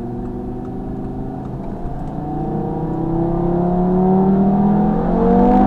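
2017 Audi TT RS's turbocharged 2.5-litre five-cylinder engine through its sports exhaust, heard from inside the cabin. It runs steadily, then from about two seconds in pulls harder, rising slowly in pitch and getting louder as the car accelerates.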